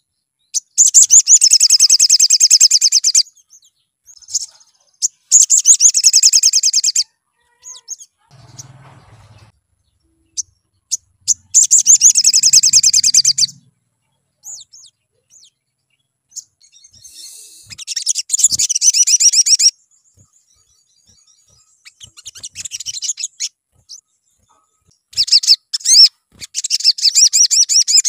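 Male olive-backed sunbird singing: bouts of rapid, high-pitched twittering trills, each two to three seconds long, coming about every five seconds, six in all.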